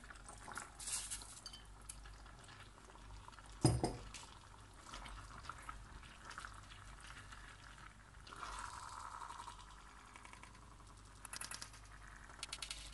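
Cream sauce bubbling in a frying pan as fresh tagliatelle is tipped in and stirred through with a spatula, the spatula scraping the pan, with one sharp knock nearly four seconds in and a quick run of scraping strokes near the end.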